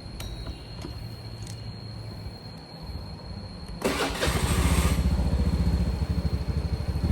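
A motorbike engine starts about halfway through with a sudden burst of noise, then runs close by with a fast low pulsing.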